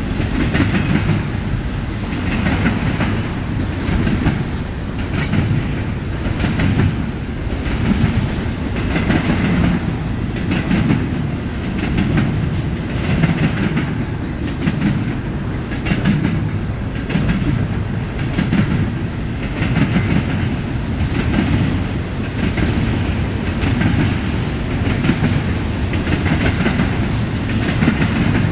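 Double-stack intermodal container train rolling past: a steady low rumble of the well cars with a regular clickety-clack of wheels on the rails, roughly one cluster of clacks a second.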